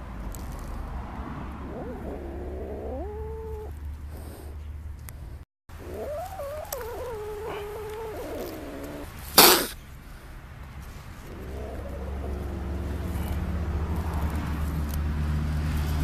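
Feral domestic kitten giving three drawn-out, wavering meows, with one short loud hiss about halfway through: a frightened, defensive kitten.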